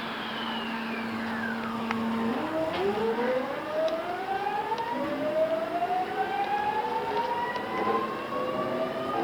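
Traction equipment of a JR East E217 series electric train, in its original pre-renewal form, heard from inside a motor car as the train pulls away: a steady low inverter hum and a high tone falling over the first two seconds. Then, about two seconds in, several whining tones begin climbing in pitch as the train gathers speed.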